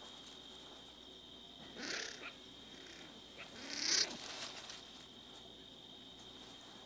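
Striped skunk foraging with its nose to the ground, making two short snuffling sounds about two and four seconds in; the second is louder. Under them runs a steady high-pitched insect chorus.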